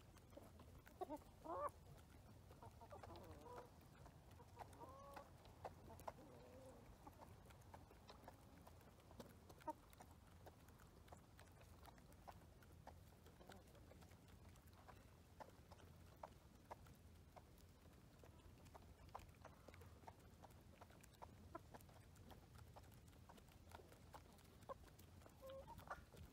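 Chickens clucking softly and faintly, with a few short calls about a second in and more between about three and seven seconds in, and faint scattered clicks throughout.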